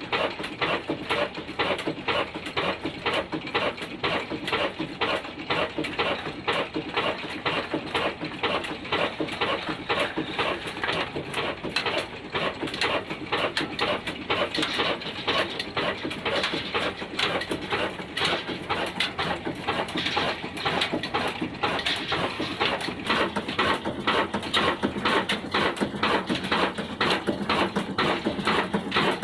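Ruston Hornsby single-cylinder diesel oil engine running, its exhaust beats coming in a steady, even rhythm.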